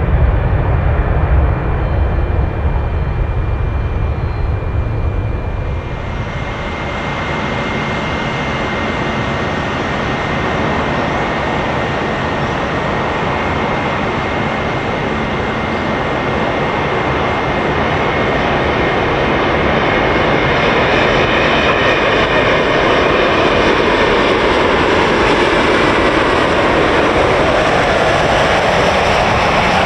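Airliner engines running: a low rumble for the first six seconds or so, then a rushing engine noise with a steady whine that builds louder toward the end.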